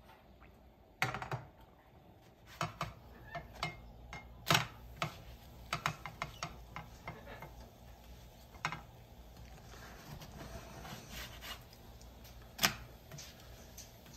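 Clatter of a spatula and Tefal nonstick crepe pans on a gas stove while crepes are flipped: a string of irregular sharp taps and knocks. The loudest come about a second in, about four and a half seconds in, and near the end.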